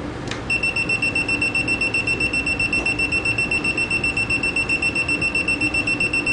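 Clamp multimeter's buzzer beeping rapidly in one high, steady tone, about five or six beeps a second, starting about half a second in. It is the meter's live-wire test signalling that the probe is on the live (phase) conductor.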